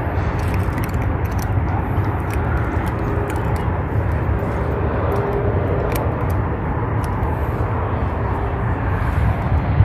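A steady low rumble of outdoor noise, with a few faint ticks scattered through it.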